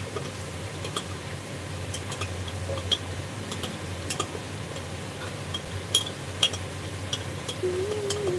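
A metal spoon scraping and clinking inside a nearly empty glass jar, in irregular sharp ticks. A steady low hum runs underneath, and a brief steady tone comes near the end.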